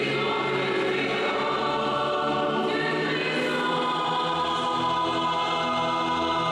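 A choir singing sustained chords in harmony, in the style of gospel.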